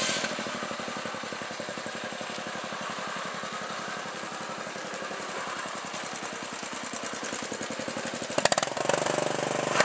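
Riding lawn tractor's small engine running as it drives, a fast, even chugging of firing pulses. About eight and a half seconds in there are a few sharp cracks, and the engine grows louder as the tractor passes close.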